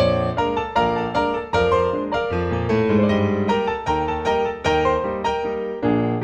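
Background piano music: a melody of quick struck notes, each fading after it is played.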